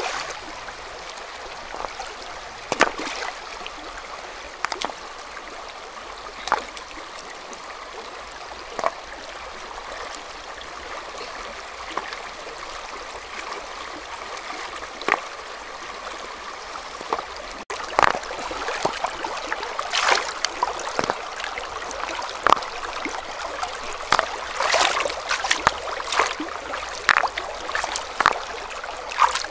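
Shallow, rocky river flowing steadily, with short splashes and knocks of river stones being lifted out of the water and set down on one another. The knocks come every couple of seconds at first, then much more often in the last ten seconds.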